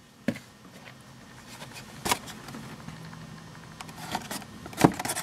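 Hands handling a small cardboard sunglasses box: low rubbing with three sharp knocks or taps, the loudest near the end.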